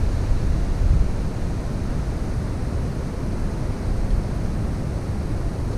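Wind buffeting the microphone: a steady, gusty low rumble with no other distinct sound.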